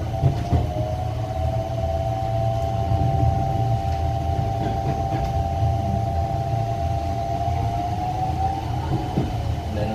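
Locomotive horn held in one long steady blast, two close notes sounding together, heard from inside a passenger coach over the low rumble of the moving train.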